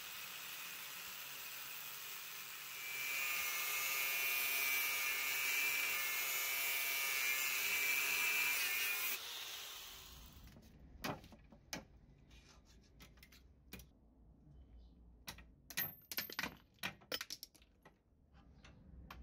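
An angle grinder's cutting disc runs and bites into the steel outer race of a ball bearing held in a vise. It gets louder about three seconds in as the cut takes load, then stops around nine seconds. After a pause come scattered sharp metal clicks and taps as a steel rod is worked against the cut bearing ring.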